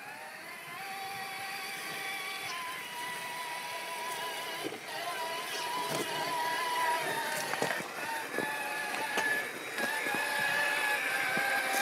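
Axial SCX6 1/6-scale RC Jeep crawler's electric motor and geared drivetrain whining, the pitch stepping up and down as the throttle changes. Sharp knocks of the tyres and chassis on rock come several times in the second half, and the sound grows louder as the truck nears.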